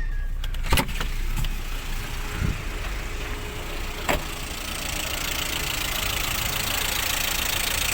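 Lada Priora's 16-valve 126 engine idling with the hydraulic valve lifters ticking: the lifters are worn or starved of oil pressure. A sharp click comes about a second in and another about four seconds in.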